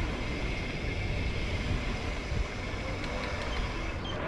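Wind rumbling on the microphone and tyres rolling over a dirt trail as a mountain bike is ridden, a steady noise with a faint high tone running through it.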